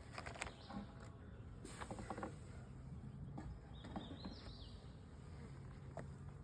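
Honeybees buzzing faintly around an opened hive, with a few light clicks and knocks from working the hive by hand.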